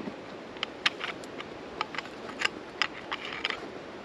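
Steel ice-tool picks and crampon points scraping and clicking on rock, with metal gear clinking: a dozen or so short, sharp, irregular scrapes and ticks as the climber works up a mixed route.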